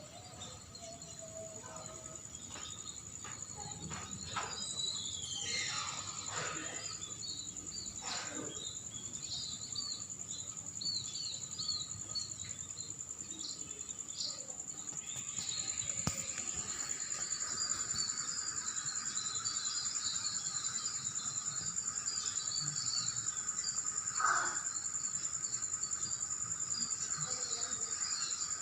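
A steady high-pitched insect drone runs throughout. Over it come many short, repeated bird chirps, growing busier in the second half.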